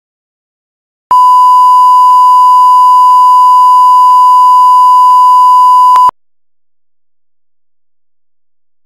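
1 kHz line-up reference tone, the test signal played with colour bars for setting audio levels: one steady pure beep that starts about a second in, lasts about five seconds and cuts off suddenly.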